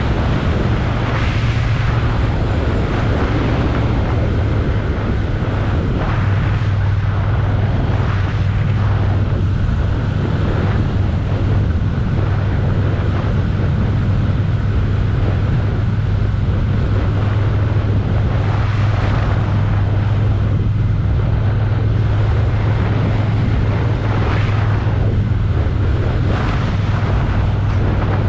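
Motorcycle engine running steadily at road speed, with wind noise on the microphone swelling now and then.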